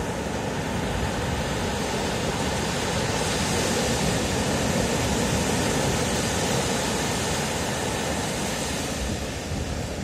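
Ocean surf: small waves breaking and washing up a sandy beach, a steady rushing that swells in the middle and eases near the end.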